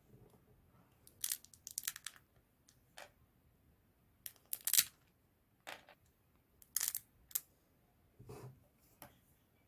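Thin resin support pillars on a freshly printed resin tank-track sheet being snapped and crumbled off by hand: sharp crackling in short bursts, a dozen or so, the loudest about halfway through.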